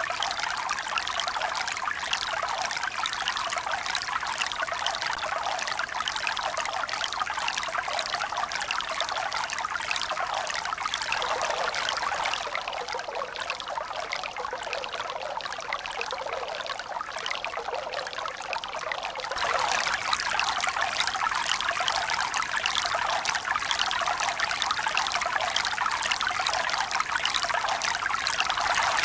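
Steady running, trickling water with no swell or pause. A little before the middle it becomes slightly softer and duller, then comes back to full strength about two-thirds of the way through.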